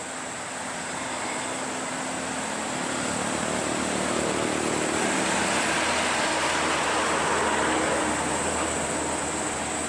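Heavy diesel trucks labouring uphill: a Hino FL235 truck's engine and tyres pass close by while a Scania P380 pulling a loaded low-bed trailer approaches. The engine and road noise swell to a peak about halfway through, then ease slightly near the end.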